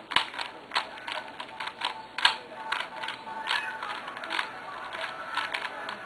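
Plastic Rubik's Cube clicking as its layers are turned quickly by hand during a solve, in irregular runs of several clicks a second.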